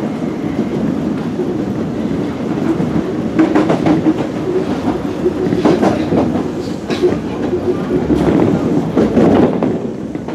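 Osaka Municipal Subway 20 series train running at speed, heard from inside the car: a steady rumble with the wheels clacking over rail joints several times, easing off near the end.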